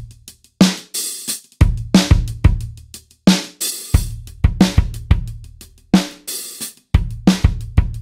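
Acoustic drum kit playing back (kick, snare, hi-hats and cymbals) through an OTT-style multiband compressor on the drum bus, which is switched to bypass partway through, so the kit is heard first squashed and then dry.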